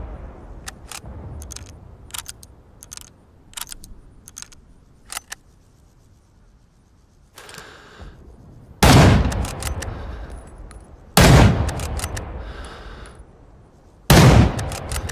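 Scoped Mosin-Nagant M91/30 bolt-action rifle in 7.62×54mmR. A run of light metallic clicks and a short scrape come first, then three loud shots about two to three seconds apart, each with a long echoing tail.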